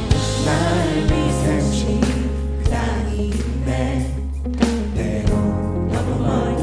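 Live worship band playing a gospel-style praise song: a steady bass and sustained chords with occasional drum hits, and voices singing along.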